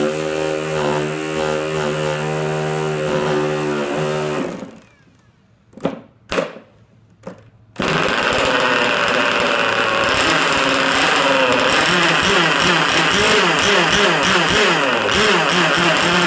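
Handheld electric starter spinning the K&B 11cc two-stroke nitro glow outboard engine, which does not catch at first. After a pause there are three short bursts of the starter, and about eight seconds in the engine fires and keeps running, loud and rough, with a wavering pitch.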